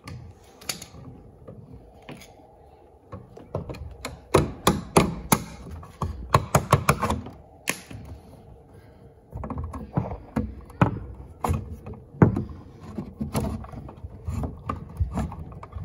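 Irregular knocks and clicks of electrical cable being handled and worked into an electrical box on a wooden wall stud, with a quick run of sharp taps in the middle.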